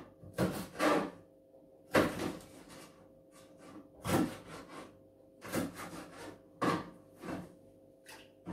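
Green beans being trimmed and handled at a kitchen sink: about nine short scraping knocks at irregular intervals.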